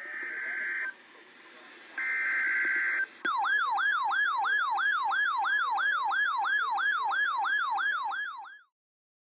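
Emergency Alert System broadcast opening: two short bursts of the harsh, buzzing data tones of the alert header, then a fast electronic warbling siren tone, about three sweeps a second, that cuts off abruptly shortly before the end.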